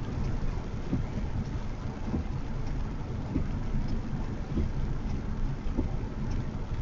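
Steady low rumble of a car driving on a wet road in the rain, tyre and rain noise together, with faint soft low knocks about once a second.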